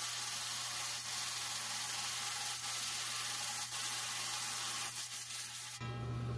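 Lapidary trim saw's diamond blade cutting wet through a prophecy stone: a steady hiss of blade and coolant over the saw motor's low hum. Near the end the sound changes as the stone comes free of the blade.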